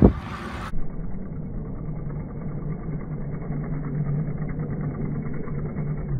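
A sharp knock right at the start, then a steady, low drone of roadside audio slowed down and pitched down by super-slow-motion playback as a time-trial bicycle passes.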